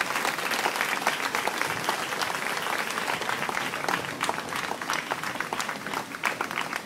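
A large crowd applauding: many hands clapping in a dense, continuous patter.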